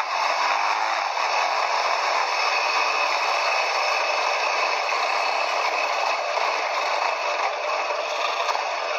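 Quad bike riding, heard as a steady rushing noise with clattering and rattling and no clear engine note.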